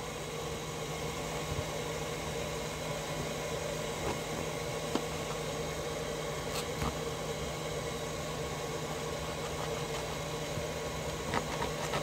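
A steady low machine hum, like a motor or fan running without change, with a few faint clicks and taps on top.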